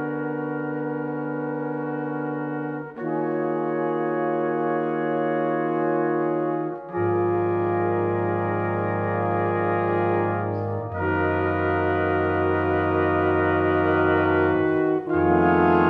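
Brass octet of three trumpets, French horn, two trombones, euphonium and tuba playing long sustained chords, moving to a new chord about every four seconds with a short break between them. The bass drops lower about seven seconds in.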